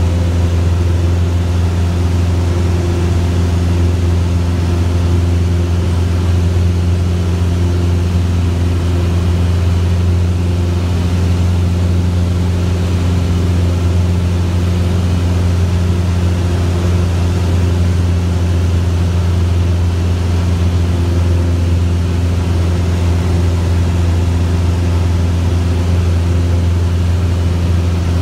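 Single-engine Cessna's piston engine and propeller running steadily in flight, heard as a loud, unchanging low drone inside the cabin.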